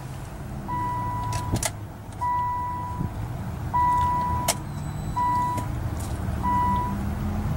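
2000–2001 Nissan Maxima's key-in-ignition warning chime: a single-tone electronic beep repeating about every second and a half, the beeps growing shorter near the end. A few light clicks come from the key and ignition switch.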